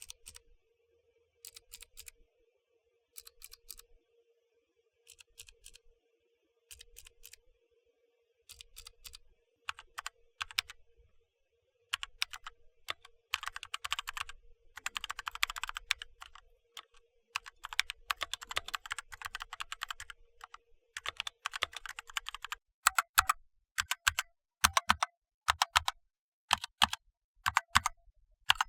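Kailh mechanical keyboard switches being pressed: scattered keystrokes in small groups, then a run of fast, dense typing about halfway through, then single, separate key presses near the end.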